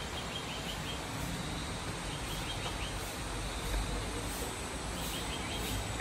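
Outdoor ambience with a steady background hiss. Over it, a bird gives a short rapid high trill three times, and a faint steady high-pitched tone runs underneath.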